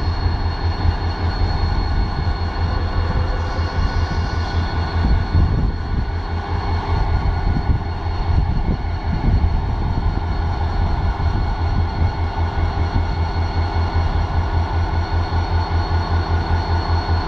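EMD two-stroke diesel engine of a GT-26 locomotive running steadily after its repair, a loud low rumble with a regular pulsing beat and a steady high whine over it.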